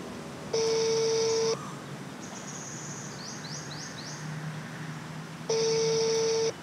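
Telephone ringback tone heard through a smartphone's loudspeaker: two steady one-second tones four seconds apart, the line ringing while the call waits to be answered. Between the rings a bird chirps a few short rising notes.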